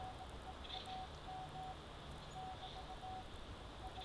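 Police scanner radio hiss in a gap between transmissions, with a faint thin tone beeping on and off in short, uneven dashes and a soft high chirp every couple of seconds.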